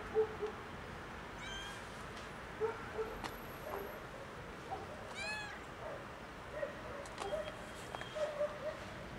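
A tuxedo kitten meowing repeatedly, short meows every second or so, several coming close together near the end.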